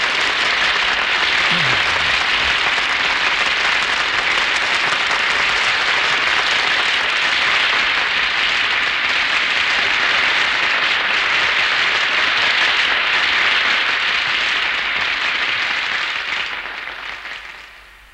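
Steady, sustained applause from a seated audience, which dies away over the last two seconds.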